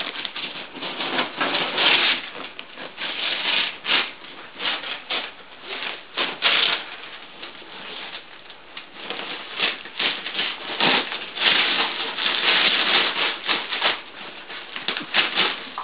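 Christmas wrapping paper rustling, crackling and tearing in irregular bursts as a dog rips it off a large wrapped present, loudest about two seconds in and again from about eleven to thirteen seconds.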